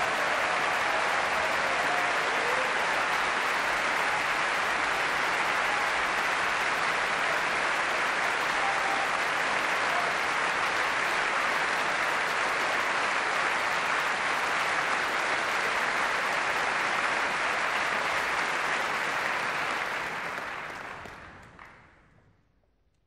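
Concert-hall audience applauding steadily, then dying away to near silence over the last few seconds.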